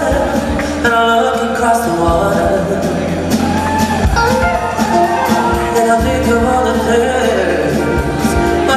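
Live pop music: a male vocalist singing over a band, with held sung notes, a steady bass and a regular drum beat.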